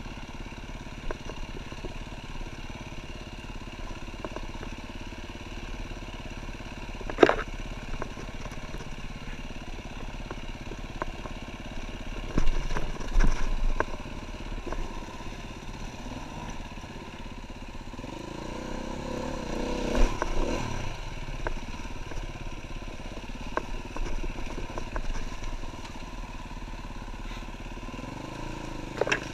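KTM EXC-F 350 single-cylinder four-stroke dirt bike engine running at low revs over rough trail, with sharp knocks and clatter as the bike hits roots and ruts; the loudest knock comes about seven seconds in. The engine revs up for a few seconds about two-thirds of the way through.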